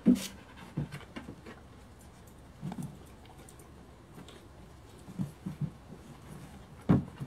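A dog moving about on a hard floor: scattered light taps and soft knocks of paws and claws, with a sharper knock at the very start and another near the end.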